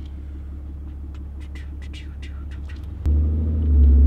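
Ram pickup's engine heard from inside the cab: a steady low drone, then about three seconds in the throttle is opened hard and a loud low engine rumble jumps up, swelling further near the end as the truck pulls away with good traction.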